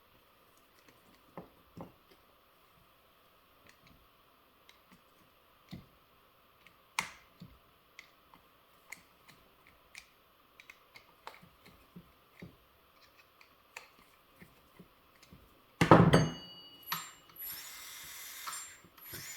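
Small metal and plastic clicks and taps of parts and screws being handled, then near the end a loud knock followed by a small electric motor whirring with a steady high whine.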